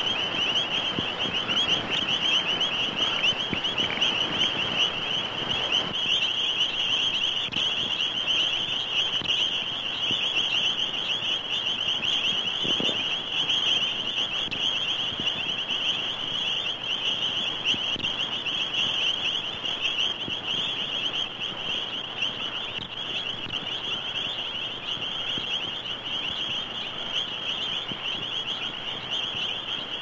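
Chorus of many toads and frogs calling at once: a dense, high-pitched pulsing trill that goes on without a break, easing off a little toward the end.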